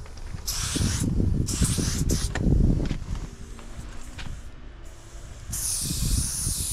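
Aerosol spray-paint can hissing in three bursts: two short ones in the first two seconds and a longer one from about five and a half seconds in. A low rumble runs underneath, loudest between the second and third bursts.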